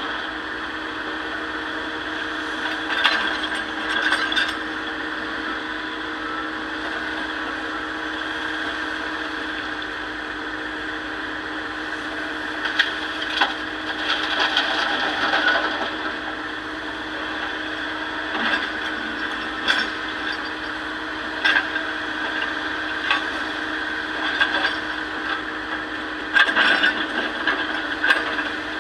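Excavator engine running steadily, with irregular knocks and clatter of stone as rock is loaded into a dump truck.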